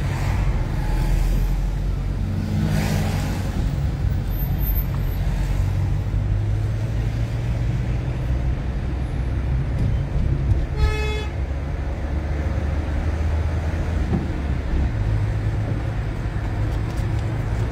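A car driving, its engine and road noise a steady low rumble heard from inside the cabin. A car horn toots once, briefly, a little past the middle.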